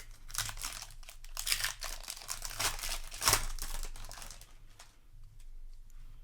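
Foil wrapper of a Magic: The Gathering Aetherdrift play booster crinkling and tearing as it is opened. The crackle is loudest through the first three and a half seconds and dies away by about five seconds in.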